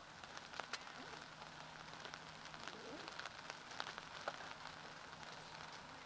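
Faint steady background noise of an open field, with scattered light clicks and a low steady hum.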